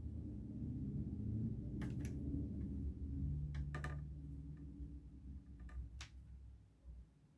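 Low rumble with a handful of short, light clicks and taps from tools being handled at a soldering bench during a board repair.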